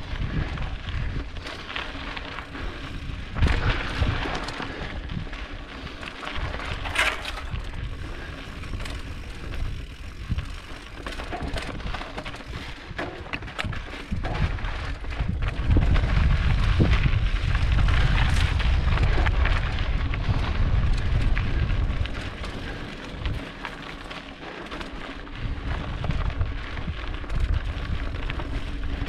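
Mountain bike rolling over a rough, rocky trail: steady tyre noise with frequent knocks and rattles from the bike, and wind rumbling on the microphone, heaviest for several seconds past the middle.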